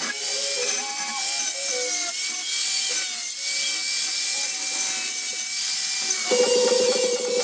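Angle grinder running and grinding steel: a steady high whine over a hiss of grinding. About six seconds in, electronic music with a heavy buzzing beat comes in over it.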